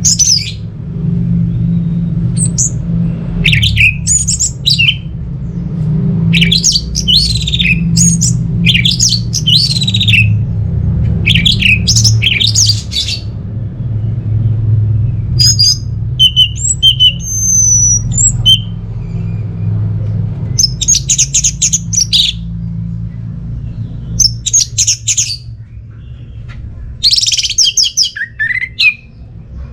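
Orange-headed thrush singing in short, rapid, varied phrases, one every second or two, over a steady low hum.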